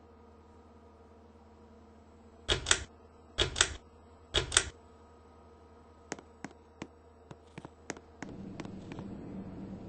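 Ceiling fan: three loud mechanical clacks, each a quick double, then a run of lighter ticks, and from about eight seconds in a low whir over a faint steady hum.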